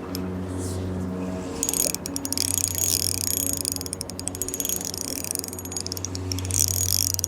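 Shimano Soare XR spinning reel's drag clicking rapidly as a fish pulls line. The clicks begin about one and a half seconds in and continue over a steady low hum.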